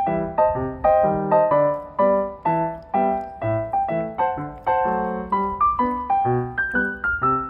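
Background piano music: a light melody of struck notes over a bass line, several notes a second, each note dying away.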